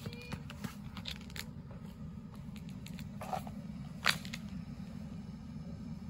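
Footsteps crunching in snow: a run of crackling steps in the first second and a half, then a few isolated crunches, over a steady low rumble.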